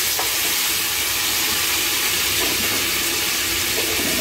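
Hot oil sizzling steadily in a wok as masala-coated whole boiled eggs fry in it.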